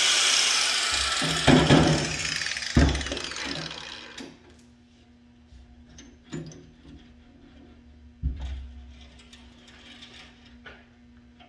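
Angle grinder with a cut-off disc winding down after cutting the Jeep door's sheet steel, fading away over the first few seconds with a couple of knocks as it is handled and set down. After that come scattered light taps, clicks and a couple of low thumps as the door panel is handled.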